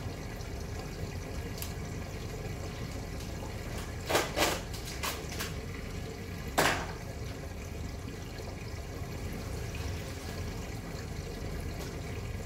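Steady trickle of water circulating in a home aquarium. A few short sharp sounds come about four seconds in, with a louder one a couple of seconds later.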